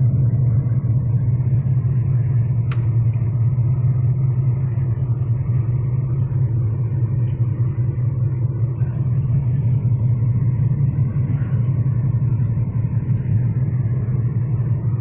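Steady low drone of a car's engine and tyres heard from inside the cabin while driving, with a single sharp click a little under three seconds in.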